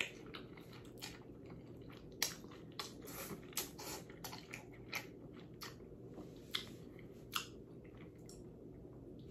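A person slurping up a mouthful of noodles and chewing, close to the microphone: irregular short, wet mouth smacks and slurps, faint overall, over a steady low room hum.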